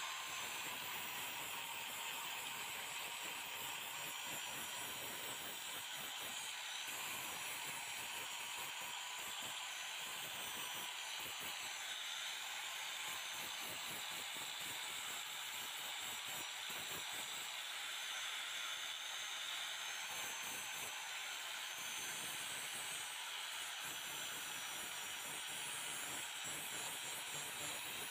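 Electric angle grinder running steadily with an abrasive disc held against a rusty steel hand tool, grinding off the rust: an even hiss of abrasion over a constant high motor whine.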